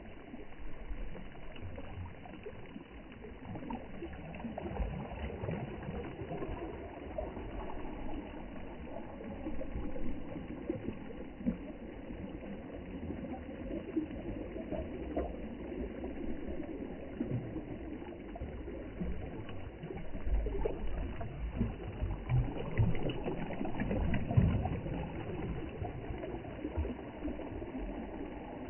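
Sea water sloshing and splashing continuously, with an uneven low rumble underneath that swells near the end.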